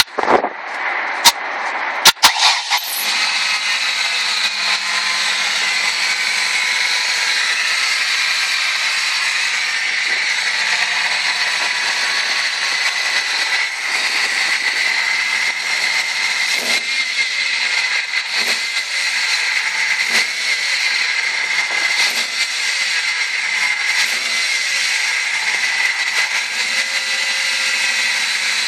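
1998 Ford Escort ZX2's four-cylinder engine running steadily with a high-pitched whine over it, the odd tone whose cause is not yet known. A few sharp clicks in the first couple of seconds before the steady running settles in.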